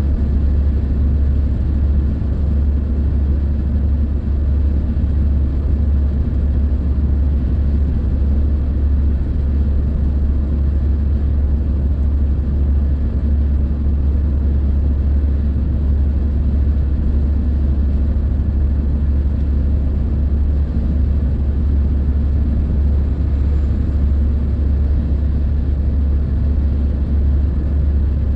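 Steady low rumble of a car cruising at motorway speed, heard inside the cabin: tyre and engine noise with no change in pace.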